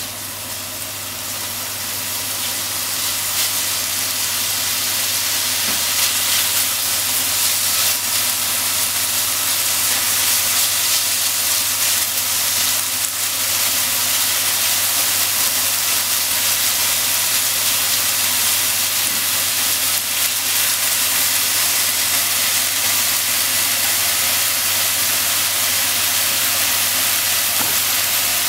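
Minced chicken sizzling as it stir-fries in sesame oil in a frying pan. The sizzle grows louder over the first few seconds and then holds steady, with a steady low hum beneath it.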